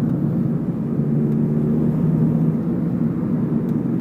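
Car engine and road noise heard from inside the cabin while driving, a steady low hum, with a few faint clicks.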